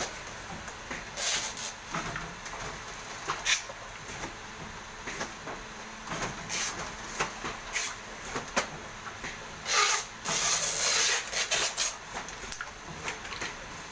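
Oil pouch packing machine running, with irregular clicks and knocks over a steady hiss, and a longer burst of hissing about ten seconds in. Filled plastic oil pouches being handled crinkle among the machine noise.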